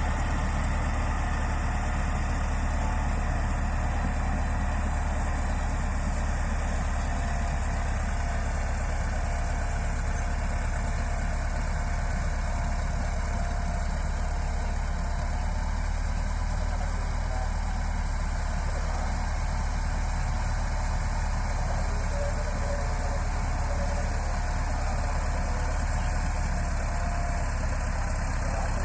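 Bulldozer's diesel engine running steadily at a low, even rumble with no change in speed.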